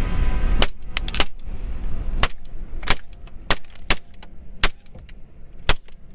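A string of about eight gunshots fired at uneven intervals, roughly half a second to a second apart, at a coyote.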